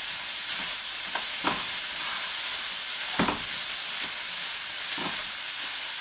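Chopped chicken and ham sizzling in a skillet as they heat through, with a steady high hiss. A utensil stirs them, scraping and knocking against the pan several times, loudest about three seconds in.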